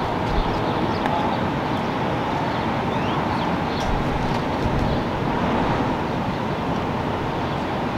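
Steady outdoor traffic noise, a continuous rumbling hiss of passing vehicles with a few faint high chirps.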